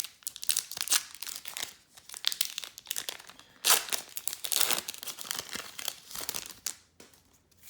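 Foil wrapper of a Pokémon booster pack crinkling and tearing as it is opened by hand: a run of crackly rustles, the loudest rip about halfway through.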